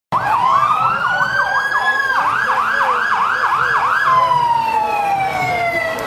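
Emergency-vehicle sirens, most likely from the fire trucks in the parade: a fast yelping warble of about three to four sweeps a second over a slow rising wail, then about four seconds in a single slow falling wail.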